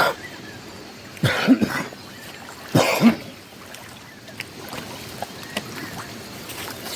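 Two short, harsh cough-like bursts about a second and a half apart, each a quick double, over a steady rush of river water.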